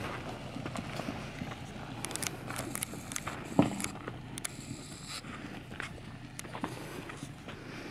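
Gravel and rock crunching and clicking as a Subaru Outback creeps slowly over a rough rocky dirt track, over a faint low engine hum. One heavy thump about three and a half seconds in.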